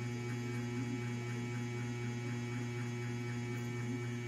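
Steady low electrical hum, an unchanging drone with faint higher overtones.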